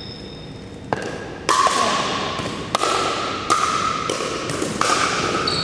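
Pickleball paddles striking a hard plastic ball in a rally: about six sharp pops roughly a second apart, starting about a second in. Each pop rings on in the echo of a large gym.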